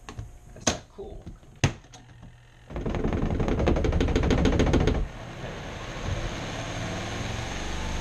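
Two clicks as the spin-tub covers shut, then the twin-tub washer's spin dryer starts with a loud, fast rattling for about two seconds, its off-balance load knocking the drum, before settling into a steadier whir.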